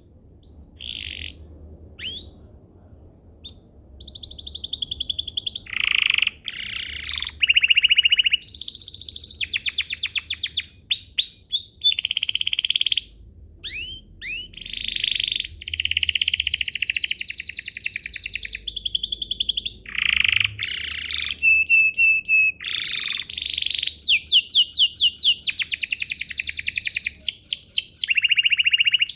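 Domestic canary singing: a few short chirps at first, then a long run of song of fast rolling trills and slurred whistled notes, breaking off briefly about halfway through.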